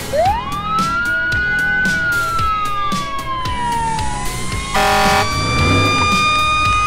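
A siren wail climbs quickly, then slowly falls and settles into a steady, slightly rising tone. A short horn blast comes about five seconds in. Background music with a steady beat runs underneath.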